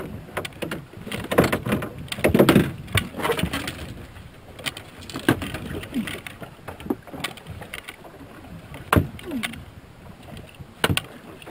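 Irregular sharp knocks and thumps in a small aluminum boat: a freshly landed coho salmon being clubbed with a wooden fish bat and flopping on the deck, loudest about two to three seconds in.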